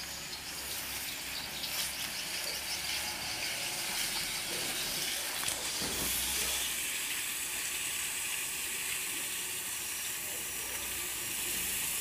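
Steady high-pitched hiss of outdoor background noise, growing a little denser about halfway through.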